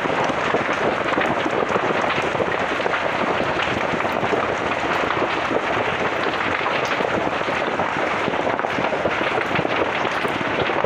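Slash and brush of a cleared jhum field burning: a loud, dense, continuous crackling made of many small pops.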